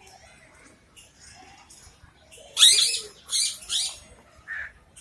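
Parrots giving harsh, screechy calls. The loudest comes about two and a half seconds in, followed by three shorter calls, with fainter chatter before it.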